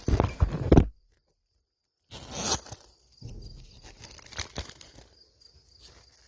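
Rustling, crinkling and knocking of food packaging being handled, with the sound dropping out completely for about a second near the start.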